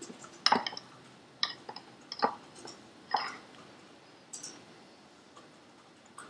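Metal fork clicking against a ceramic bowl while coating a chocolate ball in melted chocolate: about five light, irregular taps over the first four and a half seconds, then only faint ticks.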